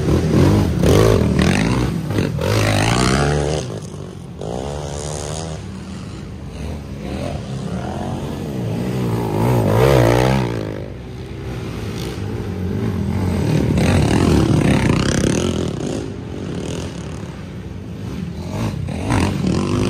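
Racing ATV engines revving hard under load as quads climb a steep dirt hill, several passing one after another. The sound swells and fades three times: about a second in, around ten seconds, and around fifteen seconds.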